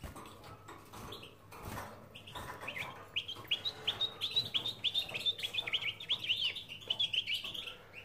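European goldfinch singing: a fast run of short, bright chirps and twitters that starts about two and a half seconds in and goes on for about five seconds.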